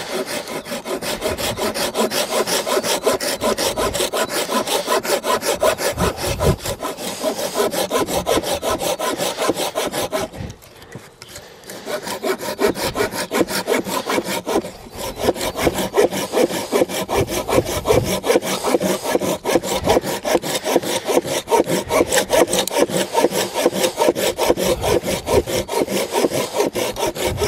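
Tajima G-SAW 240 Japanese folding pull-saw cutting through a thick branch in quick, even strokes. The sawing stops briefly about ten seconds in, then carries on.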